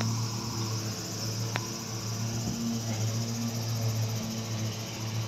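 A steady low hum with a high, even insect drone over it, and a single faint click about one and a half seconds in.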